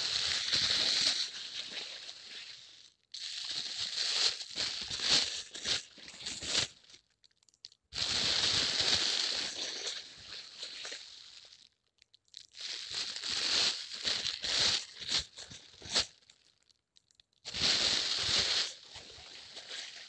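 Plastic waste crumpling and crinkling, in five separate bouts of a few seconds each with short pauses between.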